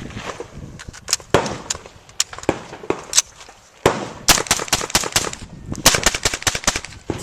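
9mm pistol-calibre carbine firing a rapid series of single shots at uneven spacing, coming closer together in quick strings in the second half.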